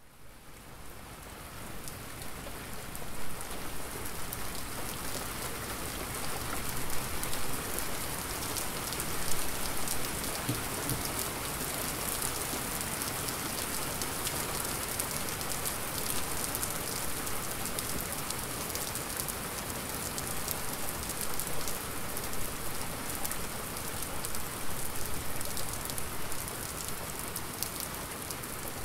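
Steady rain of a thunderstorm: a dense hiss of falling rain with many individual drops pattering on a hard surface close by. It fades in over the first two seconds and then holds steady.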